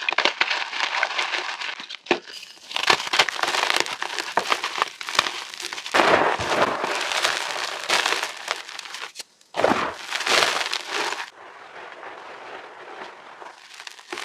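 Reformed chalk being crunched and crumbled: a dense, gritty crackling full of sharp snaps. It comes in edited bursts with brief breaks about 2 and 9.5 seconds in, and turns fainter for the last few seconds.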